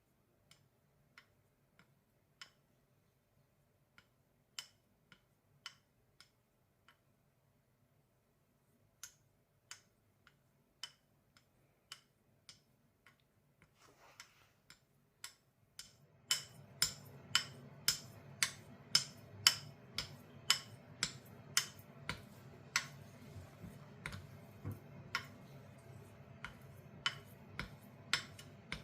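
Straight razor being honed on a sharpening stone: a steady run of sharp clicks, about two a second, as the blade is stroked and flipped on its taped spine at the end of each stroke. The clicks come in short runs with pauses, then become much louder about halfway through, over a low steady hum.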